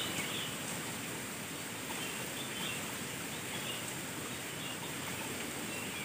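Steady outdoor background hiss with a few faint, scattered bird chirps.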